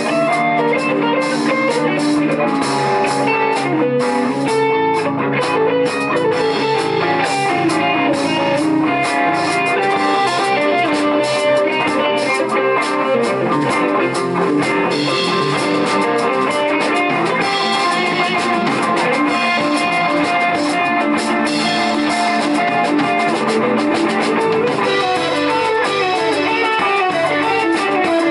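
Live rock band playing an instrumental passage: two electric guitars playing lead lines over electric bass and a drum kit.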